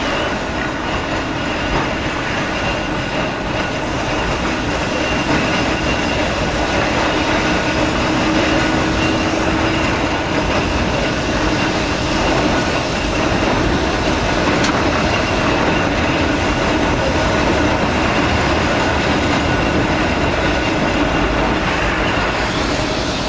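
Blackpool 'Boat' tram running along the track, heard from its open deck: a steady noise of wheels on rail and running gear.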